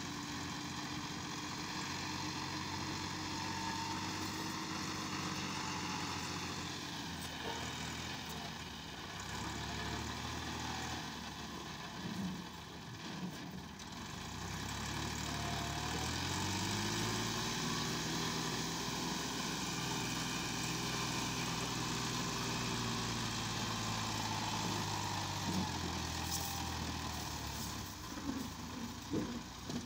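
Diesel farm tractor engine working under heavy load, pulling a trolley piled with soil. The engine note climbs to a higher pitch about halfway through, holds steady, and drops back near the end.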